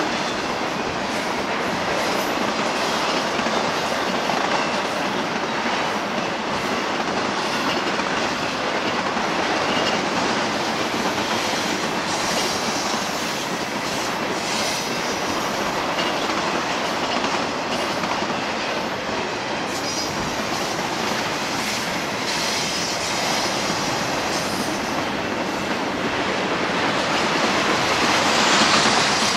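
Double-stack intermodal container cars of a freight train rolling past: a steady rolling noise of steel wheels on rail, swelling a little near the end.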